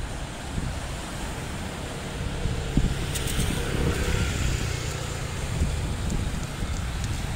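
Outdoor ambience by the sea: wind rumbling on the microphone, with a low steady rumble that swells in the middle.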